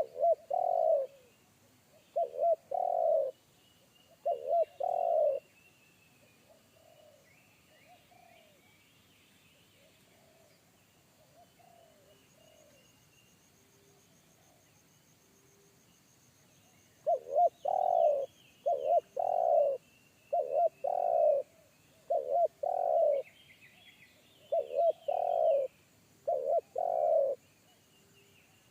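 Spotted doves cooing: a close bird gives loud, deep coo phrases, three early on and then a longer run of about seven, while a fainter dove coos softly in the gap between. Small birds chirp faintly in the background.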